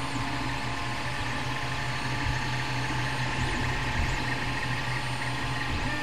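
FDM 3D printer running mid-print: a steady hum of its cooling fans with the whine of the stepper motors, their pitch shifting now and then as the print head moves.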